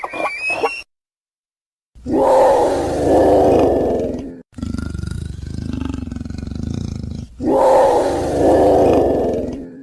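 Dinosaur roar sound effects: a short high gliding call cuts off, and after a second of silence comes a loud roar, a lower steady growl of about three seconds, then a second loud roar.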